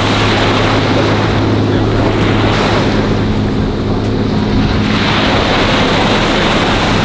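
Surf breaking and washing up a sand beach, swelling and easing every couple of seconds, with wind on the microphone. A steady low hum runs underneath.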